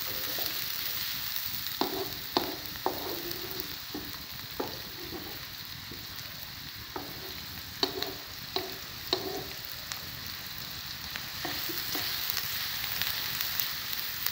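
Chopped onions sizzling steadily in ghee in a nonstick kadhai, stirred with a spatula whose strokes knock and scrape against the pan now and then, most often about two to three seconds in and again around eight to nine seconds in.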